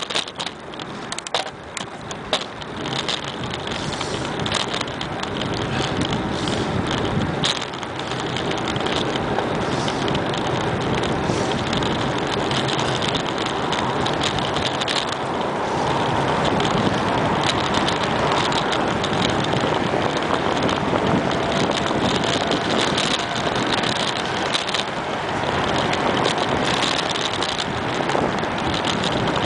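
Steady rushing noise of riding a bicycle: wind over the microphone and tyres on wet pavement, with a few light clicks and rattles.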